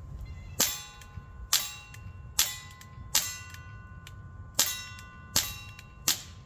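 Barra Schofield CO2 air revolver fired seven times in quick single-action succession, each shot a sharp pop followed by the ringing of a struck steel target, with a pause of about a second and a half near the middle.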